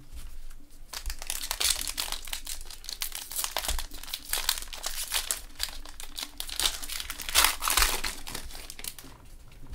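Foil wrapper of a Panini Prestige football card pack crinkling as gloved hands work it and tear it open, a dense irregular crackle that is loudest near the end.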